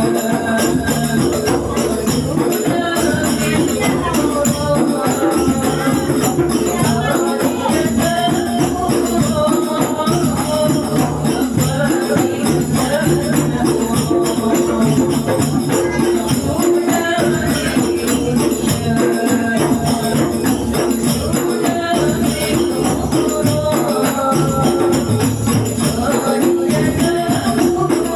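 Islamic devotional music (sholawat) playing continuously, a sung or played melody over steady hand percussion.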